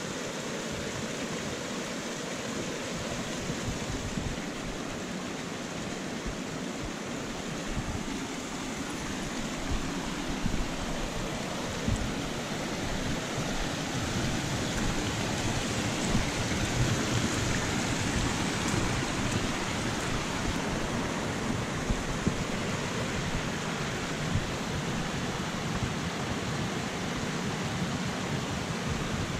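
Rain-swollen forest creek rushing and splashing over small rocky cascades: a steady rush of water that swells slightly midway.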